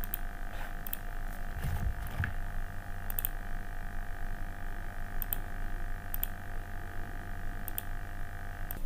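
A scattered handful of sharp computer mouse clicks over a steady electrical hum with a few constant tones.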